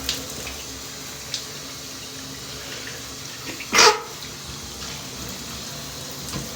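Shower water running steadily; about four seconds in, a man sneezes once, a short, loud sneeze.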